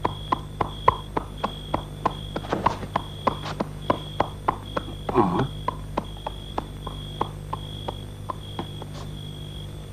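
Horse's hooves clip-clopping at a walk, an even beat of about three strikes a second, over a faint high chirp that repeats.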